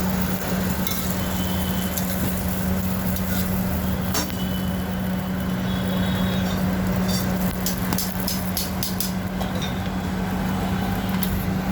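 Street-food stall kitchen noise: a steady low hum over a noisy background, with scattered metal clinks and taps from utensils. A quick run of about eight taps comes about two-thirds of the way through.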